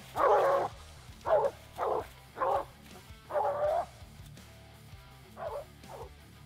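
Walker coonhound barking treed at the base of a tree, about seven chop barks at uneven spacing, the last two fainter near the end: the dog is signalling that it has a raccoon up the tree.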